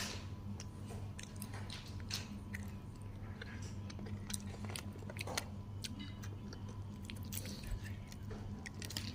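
Close-miked chewing and mouth smacking, with many short irregular wet clicks, while eating fast-food fries and fried chicken, over a steady low electrical hum.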